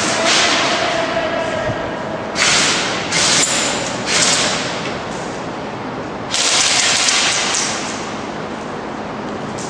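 Airsoft guns firing in bursts in an indoor close-quarters field: several short volleys and one longer burst of about a second and a half past the middle.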